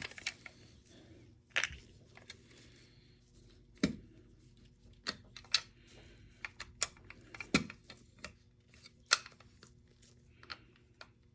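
Irregular small clicks and knocks of an airsoft rifle's metal and plastic parts being handled and worked apart during disassembly, some twenty in all, a few sharper knocks standing out.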